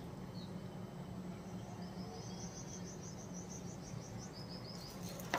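Rapid series of high chirps from a small animal, running for about three seconds, over a low steady hum; one short knock near the end.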